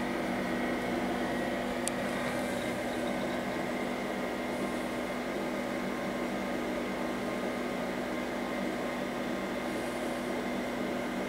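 An IBM PC RT 6150 running: a steady hum and fan whir from the machine, with one faint click about two seconds in.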